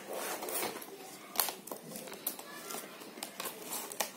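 Card and photo paper being handled: rustling, with a few sharp taps and flicks as the layered panels of a paper explosion box are lifted and folded back.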